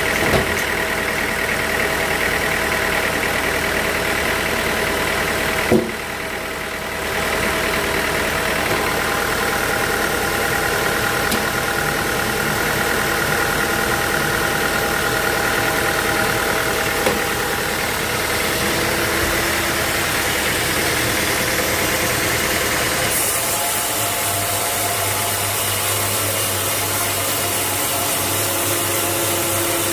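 Sawmill machinery running steadily, with a few sharp knocks. The sound dips briefly around six seconds in and changes character about three-quarters of the way through.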